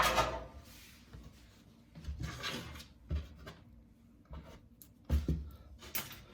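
Plastic parts of a portable ice maker knocking and scraping as they are handled and pulled apart by hand. A sharp knock at the start is the loudest; a scraping rattle comes about two seconds in, then several more knocks.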